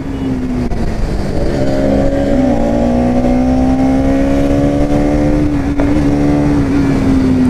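Bajaj Pulsar NS200's single-cylinder engine running under steady throttle while riding, its pitch climbing slightly through the middle and easing off near the end.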